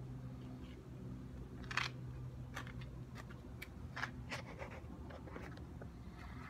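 Handling noise from a handheld phone camera: faint scattered clicks and taps, a sharper one about two seconds in, over a steady low hum.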